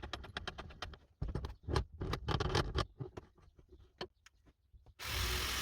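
Light clicks and knocks of hand work, then a power tool starts up about five seconds in and runs steadily.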